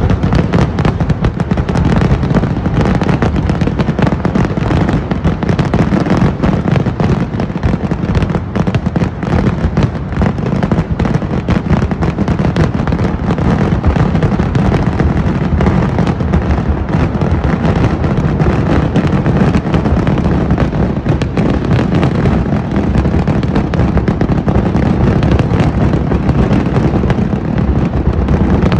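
Dense, unbroken barrage of firecracker bangs from a Kerala vedikkettu fireworks display, the blasts so close together that they run into one continuous deep din.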